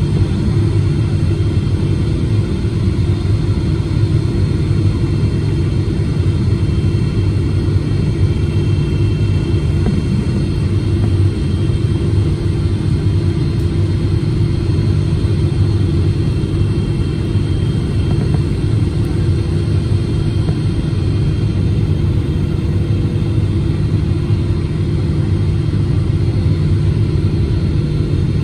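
Steady cabin noise inside a Boeing 777-300ER airliner flying at low altitude on approach: a constant low rumble of airflow and its GE90 engines, with a few steady hums and no change throughout.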